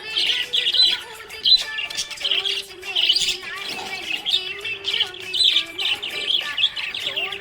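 Budgerigars chirping and warbling: a continuous stream of quick, short chirps.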